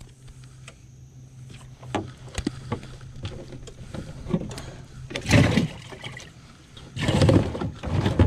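Handling noises in a small boat as a caught bream is put into a container. Scattered clicks and knocks come first, then two loud rustling, scraping bursts: a short one past the middle and a longer one near the end.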